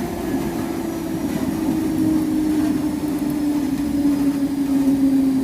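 Traction motors of a Mafersa/Hitachi Series 1700 electric train whining under the car, a single tone that slowly falls in pitch and grows louder, over the steady rumble of the train running.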